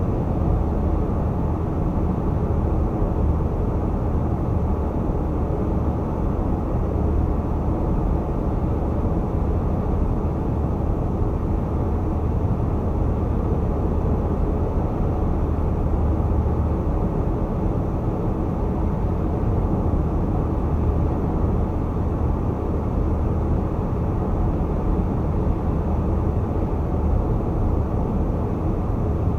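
Car driving at highway speed, a steady low rumble of tyre and road noise with no changes.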